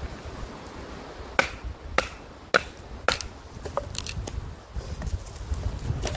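Firewood being split by batoning a large knife: a stick strikes the knife's spine, driving the blade into the upright stick, with a series of sharp wooden knocks about two a second, then a few lighter taps.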